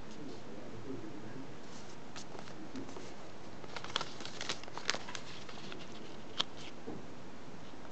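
Small square of origami paper crackling and rustling as fingers fold and crease it, with a cluster of sharp paper crackles about halfway through and one more a little later, over a steady background hiss.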